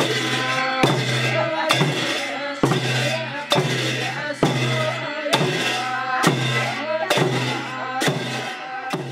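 Brass hand cymbals and a drum struck together in a slow, steady beat, a stroke a little less than once a second, each crash ringing on until the next.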